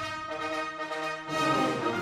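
Orchestral music, with held notes that shift to new chords a few times.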